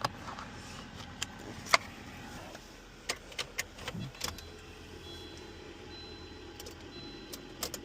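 A newly cut car key being tried on the car: scattered sharp clicks and jangling of the key and key ring. A faint steady hum comes in about halfway through, with faint high-pitched tones near the end.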